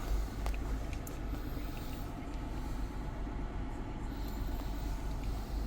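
Steady low rumble and hum inside the cabin of a 2021 Toyota 4Runner, its 4.0-litre V6 idling, with a faint click about half a second in.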